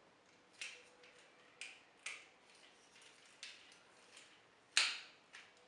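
Hard plastic parts of a Transformers action figure clicking and snapping as they are moved and tabbed into place during transformation: about seven sharp, irregular clicks, the loudest near the end.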